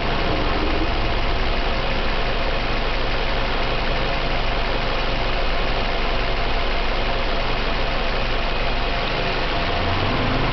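Warmed-up car engine idling steadily, with a knock that shows up once the engine is at operating temperature.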